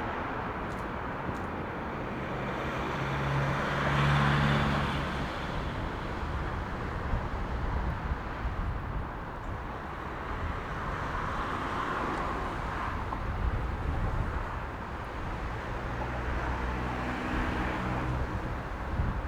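Gusty wind rumbling on the microphone, with an engine's steady drone swelling about four seconds in and fading, and rising again near the end.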